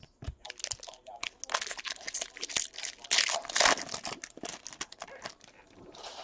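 A foil trading-card pack wrapper being torn open and crinkled by hand: irregular rustling and tearing, loudest in the middle stretch.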